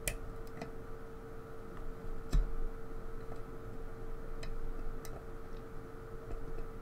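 A lock pick working the pins of a pin tumbler lock under tension, giving a few sparse, sharp metallic ticks and clicks. The loudest comes a little over two seconds in.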